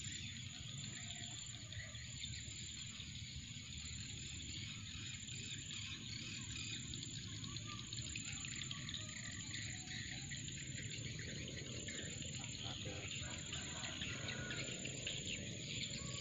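Steady chorus of insects with a thin, continuous high tone, over a low background rumble.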